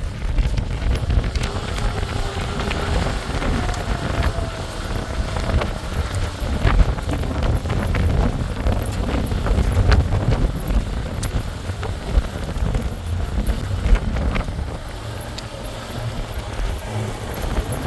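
Wind buffeting the microphone in a blizzard: a gusty low rumble with scattered clicks.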